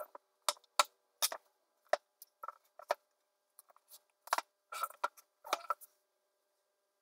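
Books being handled and shifted on a wooden bookshelf: an irregular run of light knocks and clacks, some with a faint ring, that stops about six seconds in.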